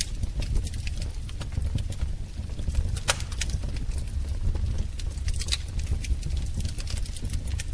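Wood fire in a fireplace crackling: irregular sharp pops and snaps over a steady low rumble of the flames, with one louder pop about three seconds in.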